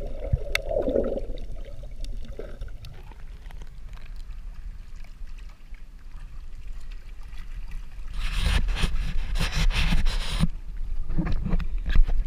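Water sloshing and bubbling against a camera in a waterproof housing, muffled at first while it is underwater. From about eight seconds there are a couple of seconds of louder, irregular splashing and hiss at the waterline, with a few more splashes near the end.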